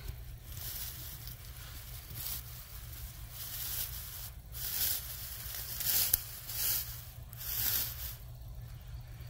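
Dry grass stalks rustling and crackling in several short bursts, over a steady low rumble.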